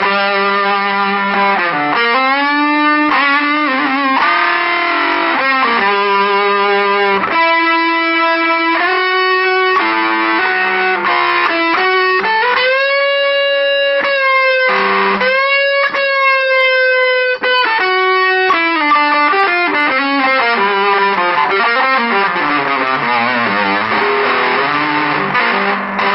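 Electric guitar played through a homemade Big Muff Triangle fuzz pedal, giving a thick, long-sustaining distorted tone. It plays single-note lead lines with string bends in the middle, and fuller chords at the start and again in the last few seconds.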